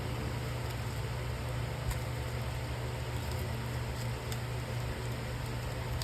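Steady low hum with a constant hiss, and a couple of faint clicks about two and four seconds in.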